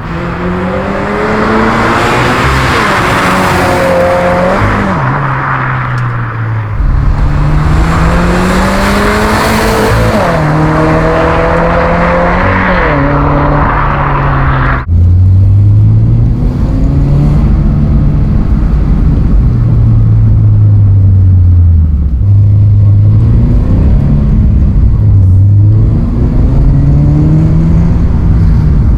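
Toyota GR86/Subaru BRZ flat-four engine breathing through a dual-exit axle-back exhaust with stock header and pipes, pulling up in pitch and dropping back at each upshift several times. About halfway it cuts abruptly to a lower, steadier engine note with small rises and falls. The tone is more aggressive than stock but fairly quiet.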